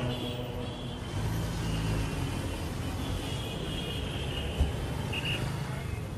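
City street traffic: a steady hum of cars and engines, with faint high squeals, a short double beep about five seconds in and a single thump just before it.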